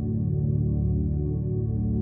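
Ambient new-age background music of slow, sustained low tones.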